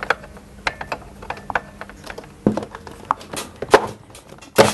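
Torx screwdriver driving holding screws into the plastic body of a Dyson DC05 vacuum cleaner: irregular small clicks and scrapes of metal on screw and plastic, with a few sharper knocks of the plastic casing being handled, the loudest near the end.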